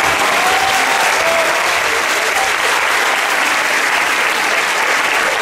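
Audience applauding steadily, with a few voices calling out in the first couple of seconds.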